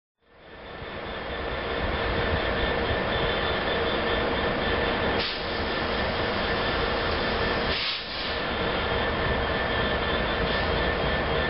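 Class 66 diesel-electric locomotive pulling away under load with a container train, its two-stroke V12 engine running hard with a steady whine over the engine noise. The sound fades in over the first second or two and dips briefly twice.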